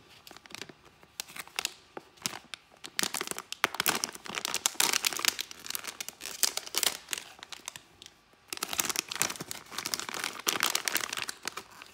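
A toy blind bag's packaging crinkling and being torn open by hand: a fast run of crackles and rips, with a short pause about eight seconds in.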